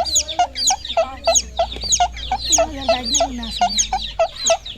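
Chickens and chicks calling without pause: many short, high peeps falling in pitch, several a second, over lower short clucks.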